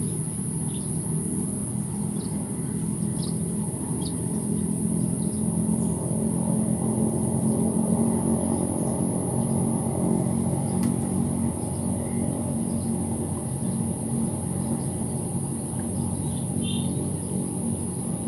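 Steady low hum of a distant motor or traffic with a steady high-pitched whine above it, and a few short bird chirps scattered through.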